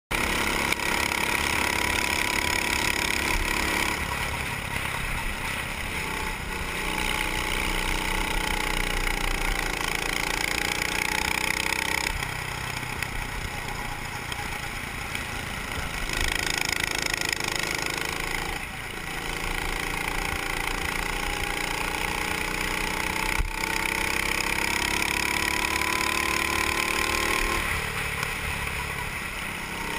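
Racing kart engine heard onboard, revving up as the kart accelerates and dropping back as the driver lifts for corners, several times over.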